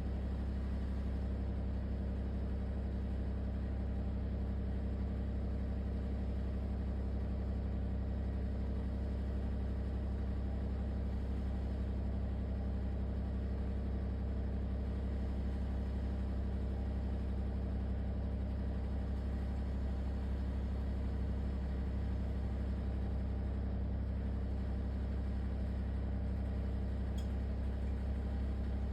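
LG ThinQ WSES4728F running with a steady low droning hum and rattle that does not let up, the noise the owner calls a horrible rattling.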